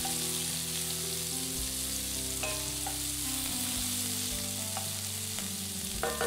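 Chopped onions and leek sizzling in oil in a Lodge cast iron chicken fryer, stirred with a wooden spoon, with a few light taps of the spoon against the pan.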